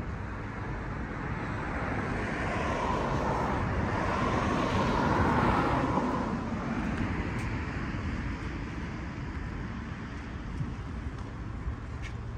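A vehicle passing by: its noise swells for a few seconds, peaks about halfway through, then fades away over a steady low street rumble.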